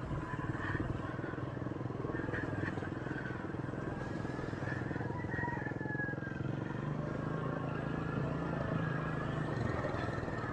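Motorcycle engine running steadily at low speed while riding along a narrow pathway.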